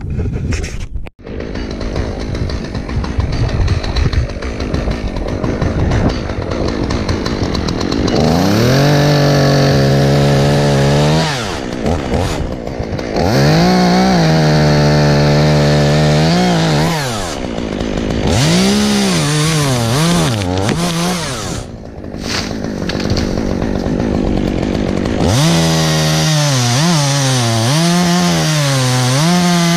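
A steady rushing noise for the first several seconds, with a brief dropout about a second in. Then a chainsaw is revved up to full speed four times. Each time its engine note climbs, holds with small dips as it cuts into wood, and falls back.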